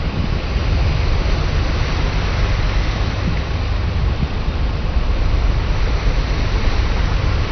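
Steady rush of wind and water, with a heavy low rumble from wind buffeting the microphone.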